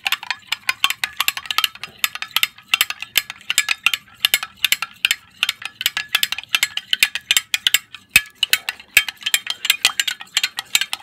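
Metal spoon stirring briskly in a glass Pyrex measuring cup, rapid irregular clinks of the spoon against the glass, several a second, as powdered extract is dissolved in water.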